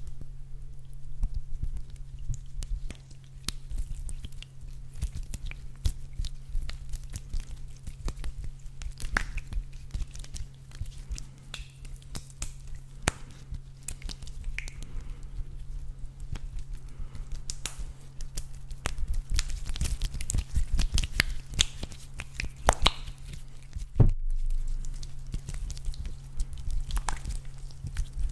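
A soft green squishy toy squeezed and kneaded in the hands right at the microphone: irregular sticky, wet clicks and squelches, with one louder pop near the end. A steady low hum runs underneath.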